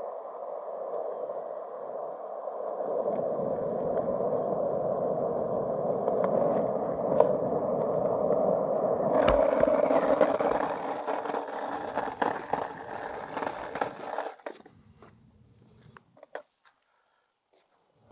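Skateboard wheels rolling on concrete, a steady rumble that grows louder a few seconds in. About nine seconds in there is a sharp knock, then the roll turns harsher and hissier until it stops abruptly about fourteen and a half seconds in, leaving only a couple of faint clicks.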